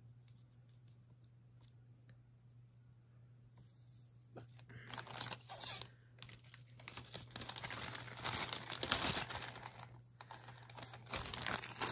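Low room tone for about four seconds, then handling noise: plastic bags crinkling and rustling with a run of quick light clicks from small jewelry pieces, loudest about three-quarters of the way through.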